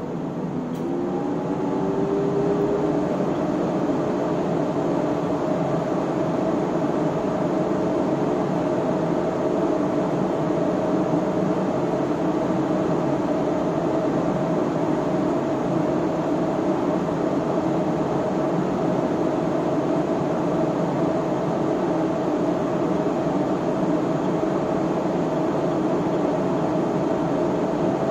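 Elgar SW3500A AC power source running: a steady whir of cooling fans with a hum of several steady tones. About a second in, the tones glide briefly upward and the sound grows a little louder, then holds steady.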